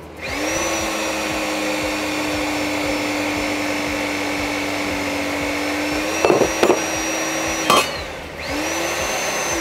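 Electric hydraulic pump with a 1/2-horsepower brush-type motor running with a steady whine, powering a 30-ton portable hydraulic angle cutter as it cuts a steel angle. A couple of cracks come near six seconds and a sharp crack at about eight seconds as the blade shears through; the motor stops, then runs again briefly near the end.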